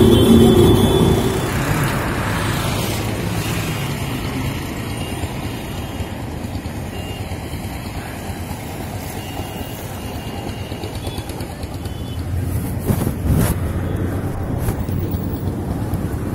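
Street traffic: a motor vehicle's engine runs loud close by for the first second or so and fades. A steady wash of road traffic noise follows.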